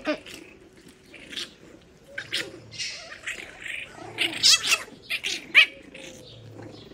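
French bulldog puppies squealing and yelping as they play-fight, a string of short high-pitched cries with the loudest just past halfway.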